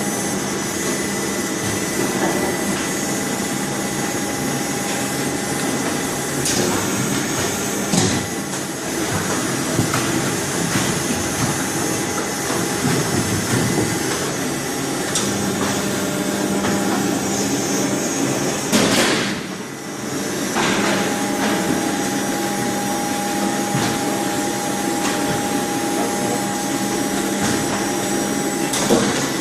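Squid-processing machinery running with a steady mechanical hum and whir, broken by a few sharp knocks and clanks, and a brief lull about two-thirds of the way through.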